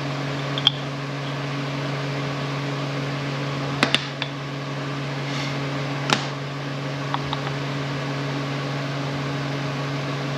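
Steady machine hum with a few sharp clicks and taps, the loudest about four and six seconds in, as small parts of an air impact wrench are handled during its repair.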